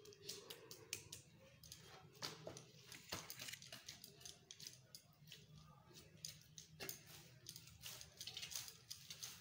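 Faint, scattered clinks and scrapes of a metal ladle against a kadhai and a steel plate while thick egg korma is scooped and served.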